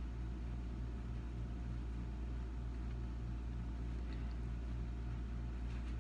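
A steady low hum with a slight, regular pulsing in it, over a faint even hiss.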